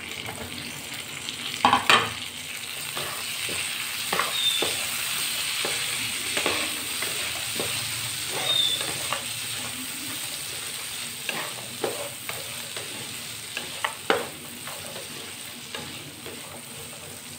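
Chopped onion, tomato, cashews and green chillies sizzling in hot oil and butter in a frying pan, stirred with a wooden spatula that knocks and scrapes against the pan. The loudest knocks come about two seconds in and again near fourteen seconds.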